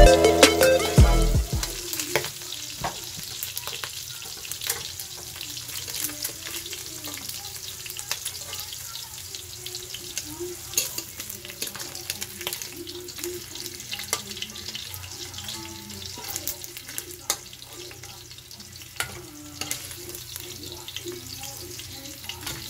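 Pork belly cubes sizzling and crackling in hot fat in a wok, with a metal spatula scraping and clinking against the pan as the pieces are turned and lifted out.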